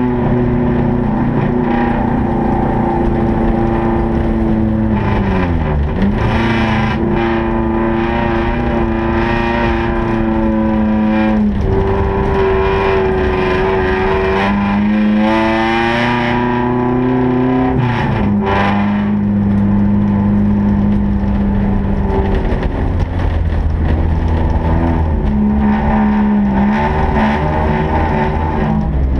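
Honda Civic ice racer's engine running hard, heard from inside the cabin, its revs held high and wavering as the car is driven. The pitch drops sharply about six seconds in and again about eighteen seconds in as the revs fall, then climbs back.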